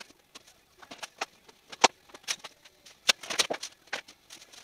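Packing inserts being pulled from a cardboard box and the box flaps handled: scattered knocks and scrapes, with one sharp knock about two seconds in and a burst of rustling and crackling around three seconds.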